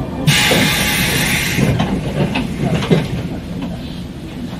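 Stationary electric train letting out a sudden loud hiss of compressed air for about a second and a half, followed by scattered mechanical clicks and knocks.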